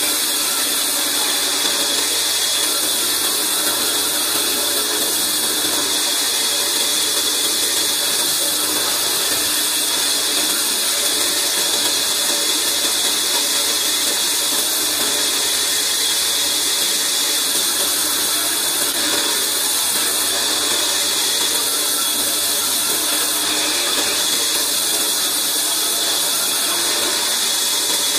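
Large wheeled band saw running steadily while a log is fed through its blade, an unbroken high hiss of cutting.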